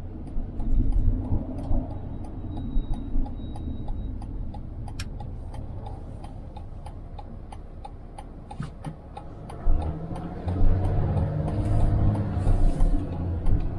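Vehicle's turn-signal indicator ticking at an even pace over the low rumble of the vehicle driving. The rumble grows louder about ten seconds in.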